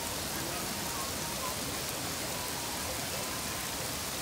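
Steady rushing hiss of water, even and unbroken.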